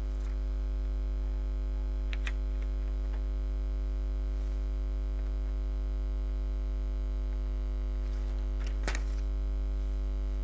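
Steady electrical mains hum with a stack of buzzing overtones, broken only by two faint clicks about two seconds in and again near nine seconds.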